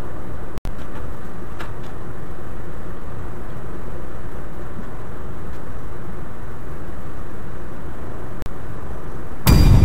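Steady low rumble of a ship's engines and machinery, with a much louder burst of noise near the end.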